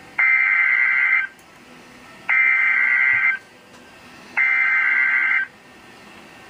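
Emergency Alert System SAME header on NOAA Weather Radio: three identical bursts of two-tone digital data, each about a second long with about a second between them. These are the coded bursts that announce and trigger receivers for the severe thunderstorm warning.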